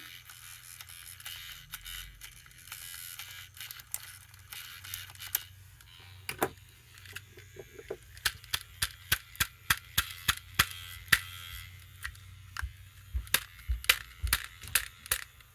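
A 1998 Furby's motor and gearbox clicking as it runs against a jam. The clicks are sparse and faint at first, then come sharp and regular about two times a second from about eight seconds in. The repairer takes this for something jamming the gears.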